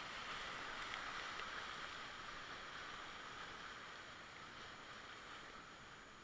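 Whitewater of a river rapid rushing around a kayak, a steady hiss that slowly fades as the boat runs out of the rapid into calmer water.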